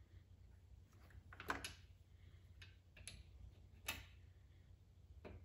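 A handful of faint, irregular clicks of a steel hex key working in a small screw head as the screw is turned by hand and tightened. The two most distinct clicks come about a second and a half in and just before four seconds.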